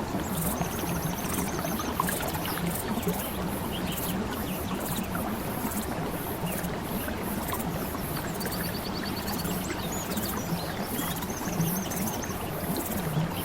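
Steady flowing water of a stream, with short rapid high-pitched bird trills about half a second in and twice more in the second half.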